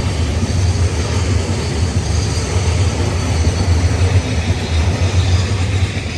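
Freight train rolling past close by: a steady, loud rumble of wheels on the rails from the passing wagons.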